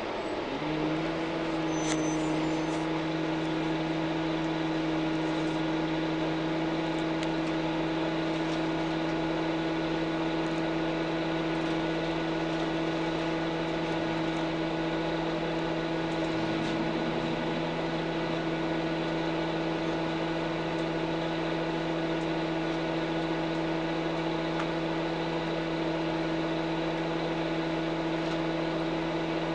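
Orion VII CNG transit bus heard from inside, its six-cylinder Cummins C Gas Plus natural-gas engine and drivetrain running. A falling pitch settles in the first half-second, then a steady hum holds at one unchanging pitch.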